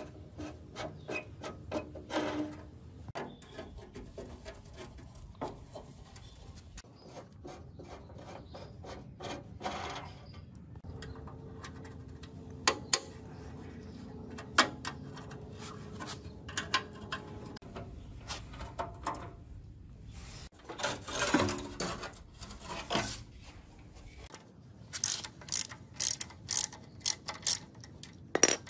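Hand tools working rusted bolts on an old engine: a socket ratchet clicking and sockets and wrenches clinking on metal. Near the end comes a run of quick, evenly spaced ratchet clicks, about two or three a second.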